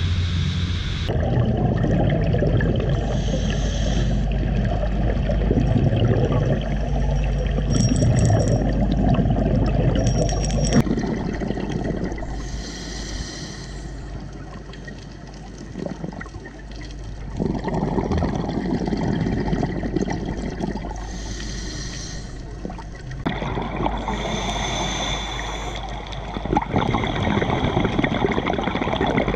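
A second of a boat's engine and churning wake, then muffled underwater water noise heard through a dive camera's housing, with stretches of brighter bubbling coming and going every few seconds.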